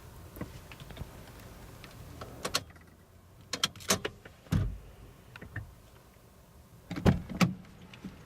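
Irregular clicks and knocks inside a Toyota Crown S170's cabin over a low steady hum, with a low thump about halfway through and two louder knocks near the end.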